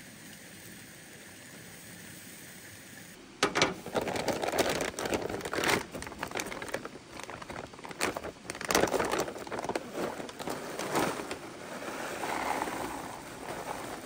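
A faint steady hiss, then about three seconds in the loud crinkling of a plastic bag of dry dog food being handled and opened, with scattered sharp clicks, and dry kibble pouring out of it into a bowl near the end.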